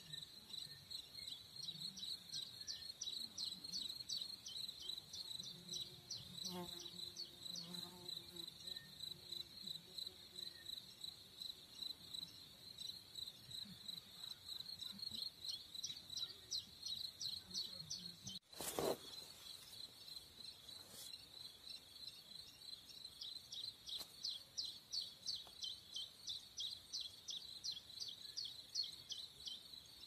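Meadow insects chirping in a rapid, pulsing high trill that goes on steadily, with one sharp click about eighteen seconds in.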